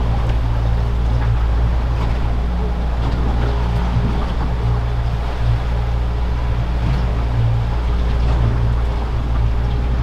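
A boat's 150 hp outboard motor running at a steady, even pitch with a low hum, under a steady hiss of wind and water.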